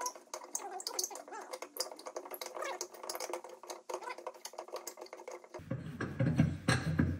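Quick clicking, rattling and squeaking as the spare tire is worked loose from the car's trunk well. About five and a half seconds in, heavier low thumping and rustling of the tire being handled begins.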